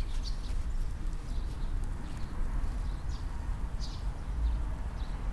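Low, uneven rumble of wind on the microphone, with a few faint, short crackles scattered through.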